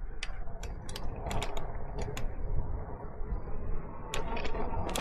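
Electric bike being ridden, its parts giving irregular sharp clicks and rattles over a steady low rumble of riding noise.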